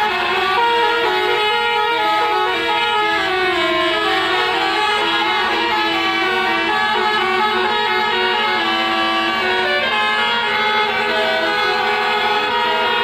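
Several buses' telolet horns, multi-trumpet musical air horns, playing overlapping melodies without a break, with a steady low tone held underneath.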